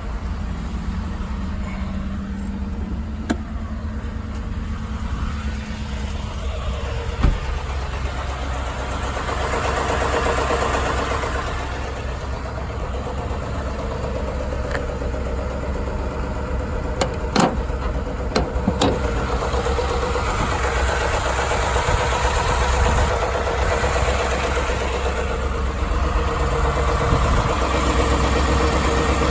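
Ford F-150 5.0-liter V8 engine idling steadily, listened to for a possible engine knock, with a few short sharp clicks along the way.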